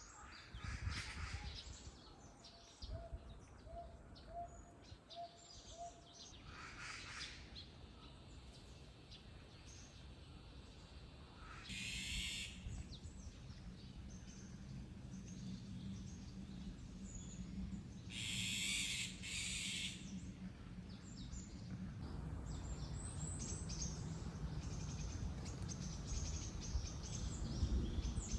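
Wild birds calling outdoors: a run of short, evenly spaced low notes over the first few seconds, then several brief, higher calls, two longer ones back to back about two-thirds through.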